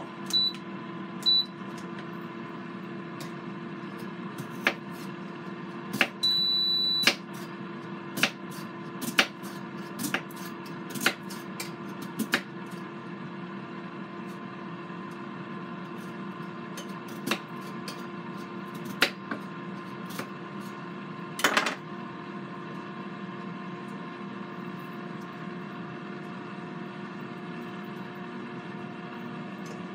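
Two short electronic beeps from an Aroma digital rice cooker's keypad as its buttons are pressed, and a longer beep about six seconds in, over the steady hum of a Power XL air fryer running. A kitchen knife clicks and taps now and then as it slices a potato in a metal Hasselback slicing rack.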